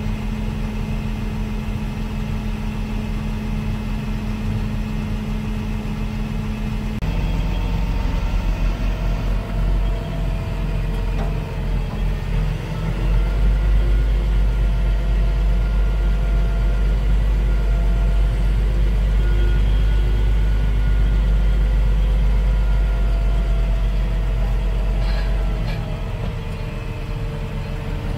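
Massey Ferguson tractor engine heard from inside its cab. It runs steadily, changes note about seven seconds in, runs louder from about thirteen seconds, and drops back about two seconds before the end.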